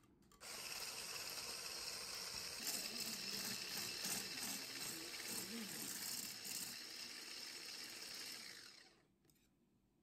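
Electric stick hand blender with a whisk attachment running steadily in a stainless steel bowl, whipping a mixture into a white foam. It starts about half a second in and stops about nine seconds in.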